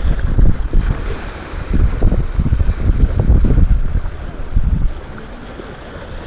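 Strong wind buffeting the microphone in gusts over the rush of waves against a sailing yacht's hull, easing off near the end.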